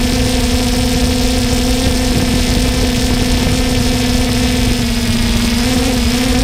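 3DR Solo quadcopter's electric motors and propellers running at a steady hover, heard from the GoPro on board: an even hum over a constant hiss of air. The pitch wavers slightly about five and a half seconds in.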